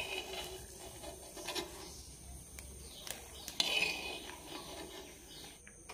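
A steel spoon scraping and knocking in an earthenware pot as fried dried red chillies are lifted out of the oil. A sharp click at the start, then soft scraping with a louder scrape about three and a half seconds in.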